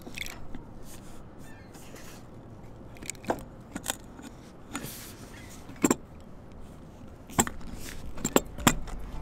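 About six or seven sharp metallic clicks and knocks, scattered from about three seconds in and closer together near the end, over steady background noise.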